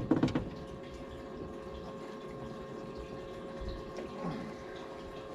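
A sharp knock at the very start, then the steady, even hum of a small motor with water sloshing around it.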